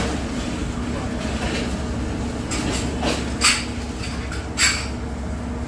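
Steady low mechanical rumble of commercial-kitchen machinery, with two brief sharp clatters about three and a half and four and a half seconds in.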